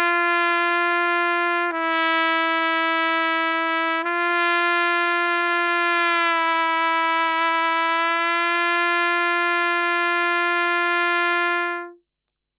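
Trumpet playing one long slurred note in a semitone note-bending exercise. A G slurs down to F♯ about 2 s in and back up to G about 4 s in. The G is then lipped down a semitone to the F♯ pitch with the embouchure alone and brought back up, and the tone stops near the end.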